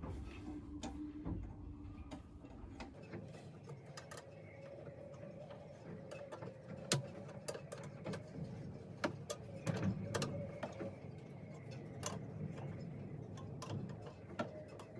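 Irregular metallic clicks and taps of a 7/16 inch wrench working loose the bolts on the top of a sea strainer, over a faint steady hum.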